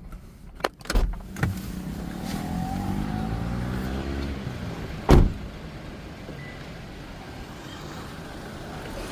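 Car door clicking open, then slammed shut with one loud thump about five seconds in. A vehicle's engine note falls away in between, over steady traffic.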